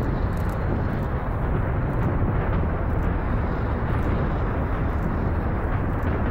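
The four RS-25 liquid-fuelled rocket engines of the SLS core stage firing steadily in a static hot-fire test. It is a continuous deep noise, heaviest in the bass, with faint crackles on top.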